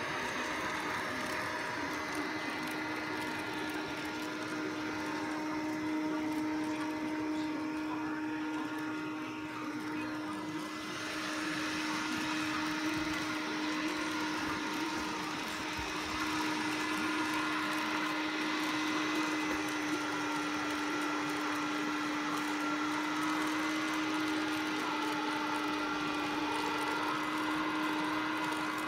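Samsung POWERbot robot vacuum running on thick shag carpet: a steady motor hum with a whine. It dips briefly about ten seconds in and runs a little louder later on.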